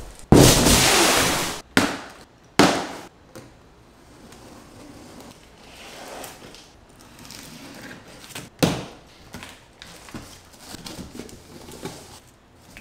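Large cardboard shipping box being handled: a loud scraping rush of cardboard early on, a few sharp thuds as the box is knocked and set down, then softer rustling of cardboard flaps as it is opened.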